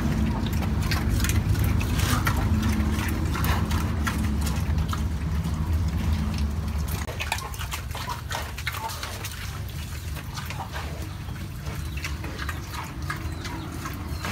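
A pig eating green vegetable stalks, with wet chewing and crunching clicks. A low rumble in the first half stops abruptly about seven seconds in.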